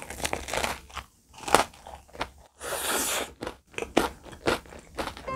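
Close-miked biting into a hwang-cheese (yellow cheese) tart with a crisp cookie crust, then chewing it: irregular crunches and crackles of the crust, the sharpest about a second and a half in.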